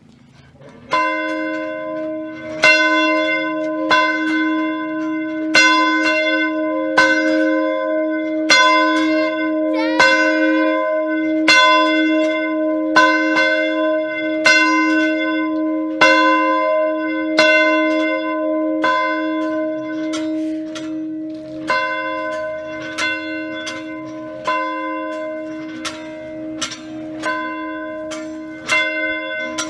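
A single church bell tolling steadily as a call to prayer, struck about once every second and a half from about a second in, each stroke ringing on into the next.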